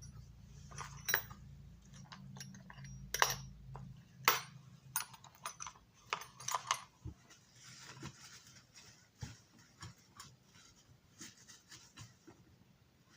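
Sharp clicks and taps of small hard parts being handled and set down on a work surface, irregular and scattered, the loudest about one, three and four seconds in. A low hum underneath stops about four seconds in.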